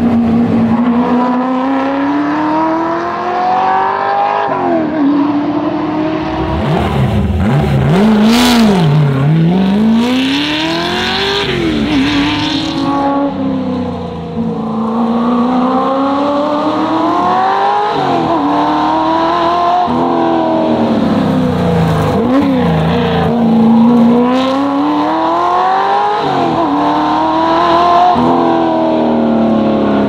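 Classic Ford Shelby GT350 Mustang's V8 driven hard on a tarmac rally stage. The engine note rises through the revs, then drops sharply several times as the car lifts off and changes gear for the corners.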